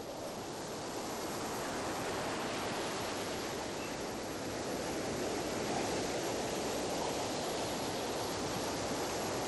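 Surf breaking on a sandy beach: a steady rushing wash of waves that swells in over the first second or so and then holds level.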